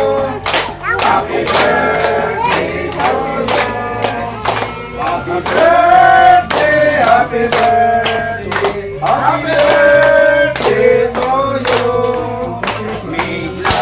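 Music playing: a song with singing over a steady beat.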